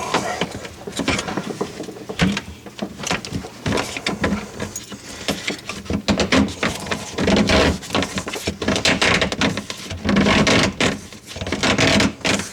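A dishwasher being shoved back into its cabinet opening, with repeated irregular knocks, bumps and rubbing of the unit against the cabinet and floor. It goes in hard, which may be because the drain hose was left unhooked.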